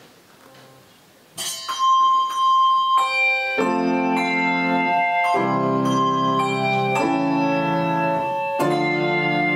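A keyboard plays the introduction to a song: after a quiet moment, a few single high sustained notes begin about a second and a half in, then fuller held chords come in from about three and a half seconds.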